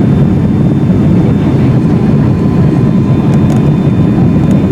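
Steady, loud cabin noise inside a Boeing 757-300 on approach: a low roar of airflow and the Pratt & Whitney PW2040 turbofans, with faint steady whining tones above it.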